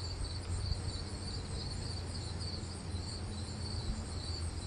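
Crickets chirping in a steady, evenly pulsing high-pitched chorus over a low constant hum.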